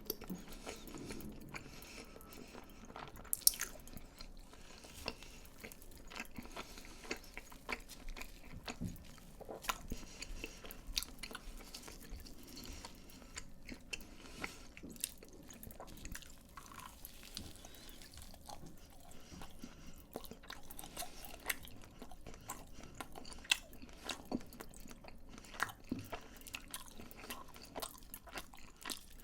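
Close-miked chewing of crispy fried food, with many irregular crunchy bites and wet mouth sounds, one crunch much louder about three and a half seconds in.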